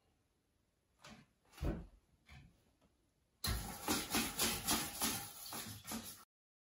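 A few soft knocks, then a toilet brush scrubbing the bowl in quick repeated strokes, about four a second, for nearly three seconds before cutting off abruptly.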